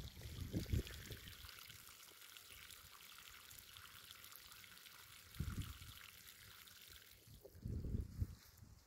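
Pond vacuum's outlet hose pouring sucked-up pond water and algae sludge onto grass: a steady splashing pour that thins out about seven seconds in. A few dull low thumps come at the start, about halfway and near the end.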